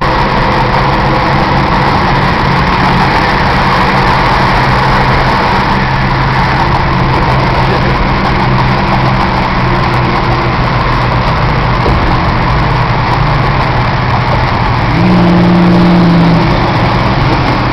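Car engine and road noise heard from inside the cabin while driving at highway speed, a steady drone. About fifteen seconds in, the engine note rises a little and gets louder for a second and a half, then settles back.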